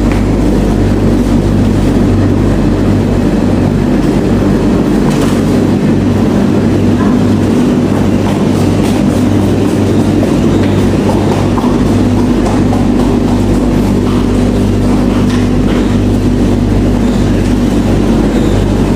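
Loaded Speed Queen coin-operated tumble dryers running: a steady, loud hum from the drum motors and blowers, with a low, regular throb as the drums turn.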